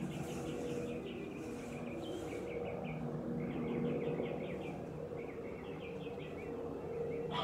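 A small bird singing in several short phrases of fast repeated chirps, over a steady low hum.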